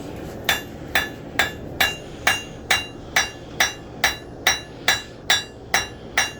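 Hand hammer striking a hot steel knife blank on an anvil, blows falling evenly a little over two a second from about half a second in, each with a short metallic ring.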